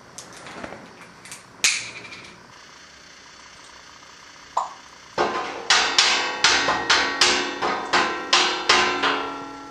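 An African grey parrot knocking its beak against the white panel where it sees its reflection: a run of about a dozen sharp knocks, roughly three or four a second, starting about halfway through. A couple of brief, sharper sounds come earlier.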